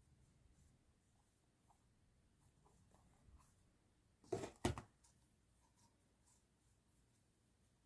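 Faint handling of paper stationery and packaging: scattered soft ticks and rustles, with a brief louder rustle of two quick bursts about four and a half seconds in.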